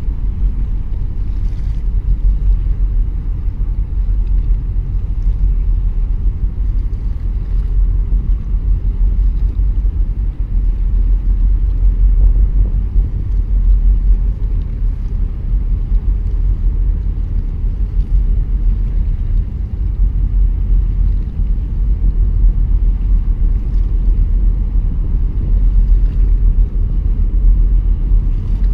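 Steady low rumble of a small boat under way, with wind buffeting the microphone and making the level waver constantly.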